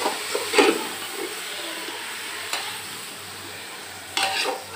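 Minced meat and onions frying in oil in an aluminium pressure cooker, sizzling steadily while a metal slotted spoon stirs them. The spoon scrapes and knocks against the pot a few times, loudest about half a second in.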